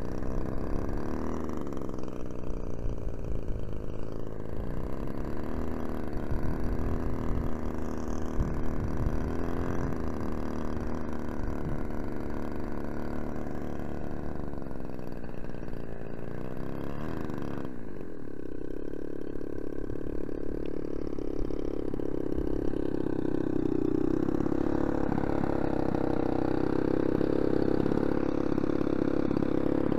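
Radio-controlled model airplane's engine running at low throttle, its pitch rising and falling as the throttle is worked. A little past halfway the sound changes abruptly, and in the last several seconds it runs steadier and slightly louder.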